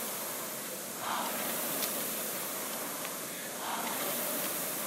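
Concept2 rowing machine's air flywheel whooshing steadily, swelling with each drive stroke, twice, about two and a half seconds apart.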